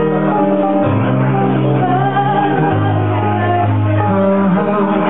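Live folk-rock band music: acoustic guitar and keyboard with singing, the low keyboard notes held and changing every second or two.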